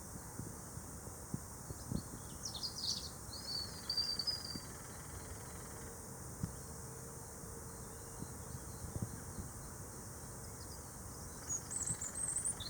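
Two short flurries of high chirping bird calls, one about two and a half seconds in and another near the end, over a steady high-pitched hiss.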